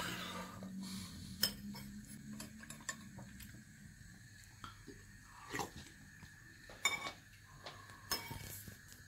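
Metal spoon clinking and scraping against a ceramic soup plate in scattered light taps, a few of them louder.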